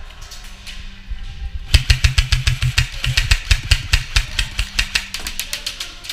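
Airsoft gun firing rapid full-auto bursts: a fast run of sharp cracks starting about two seconds in, thinning to scattered shots near the end.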